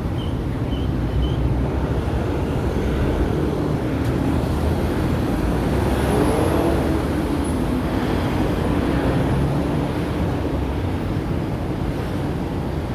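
Hong Kong tram running, with a steady rumble of the ride and road traffic.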